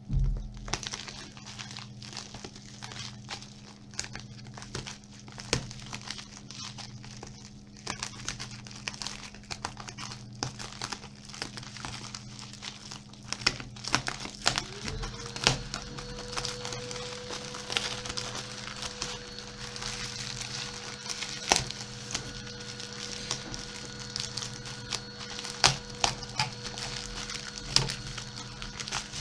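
Packaging crinkling, rustling and tearing as a small parcel is opened by hand, with many scattered short clicks and crackles. A steady low hum runs underneath.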